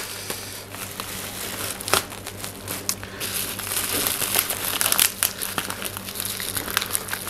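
Bubble wrap and a plastic sleeve crinkling and crackling as hands tug a wrapped plant pot free and work at its tape, with irregular sharp crackles throughout.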